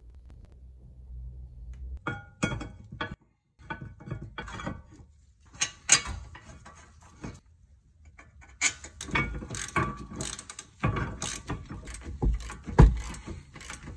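Socket ratchet clicking as the rear brake calliper carrier bolts are run in and tightened, mixed with metallic clinks and knocks of the tool, bolts and carrier. The clicking comes in short runs and is densest in the second half.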